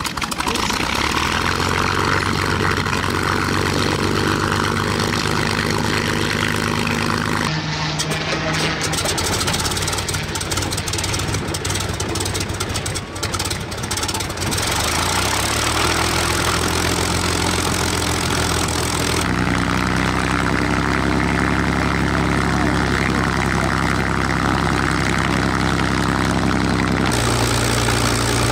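North American P-51D Mustang's Merlin V12 engine running at a steady idle, its propeller turning, with a deep even beat; the engine note shifts in pitch a few times and picks up briefly just past halfway.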